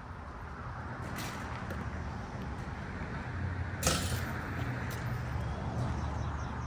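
A single sharp knock about four seconds in, with a faint tap a little after the first second, over a steady low rumble.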